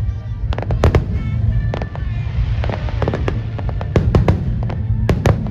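Aerial fireworks going off in a rapid, irregular string of sharp bangs and crackles, with music playing underneath.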